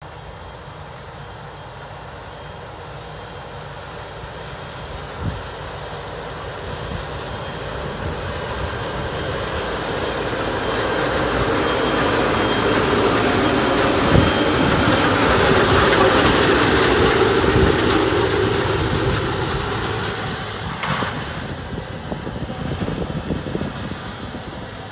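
Fendt tractor towing an Amazone disc air seeder at work, its engine and the seeder's running gear growing louder as it approaches, loudest about two-thirds of the way through as it passes close by, then fading as it moves away. A couple of brief knocks stand out along the way.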